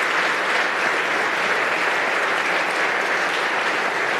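A large audience of legislators applauding steadily, many claps blending into one even sound.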